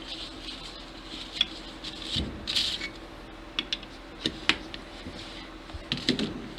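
Steel saw-tooth rivet tool being handled, giving scattered light metallic clicks and clinks at irregular intervals over a low steady hum.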